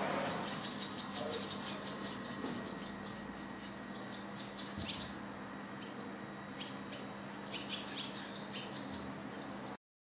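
Barn swallow nestlings giving rapid, high-pitched twittering begging calls, a dense flurry for the first few seconds, then scattered chirps, then another flurry near the end.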